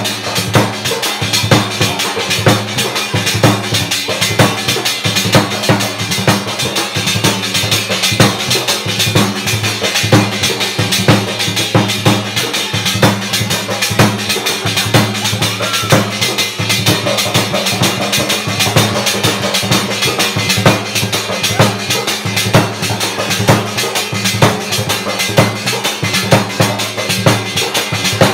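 Live folk music driven by a dhol drum beaten with a stick, a dense, steady rhythm of strokes that carries on without a break.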